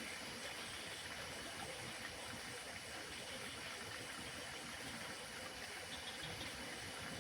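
Steady outdoor mountain ambience: an even wash of background noise with no distinct events, and a faint, steady high tone.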